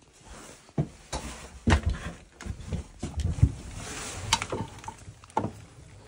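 Irregular knocks and clicks with rustling handling noise, footsteps on bare wooden floorboards among them.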